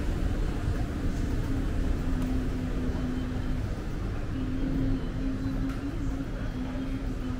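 Steady low rumble of background ambience with a steady hum running through it, which drops out briefly about four seconds in.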